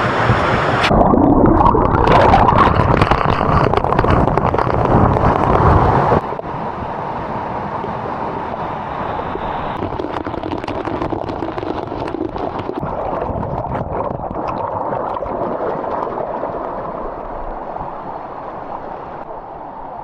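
Rushing water of a waterfall, loud for about the first six seconds, then cutting suddenly to a softer, steady rush.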